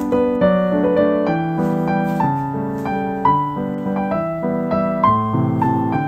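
Background piano music, a gentle melody of single notes over chords.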